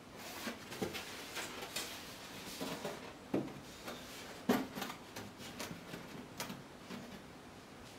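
Handling noise as a large white reflector board is picked up and held in place: irregular knocks, scrapes and rubs, the loudest knocks about three and a half and four and a half seconds in.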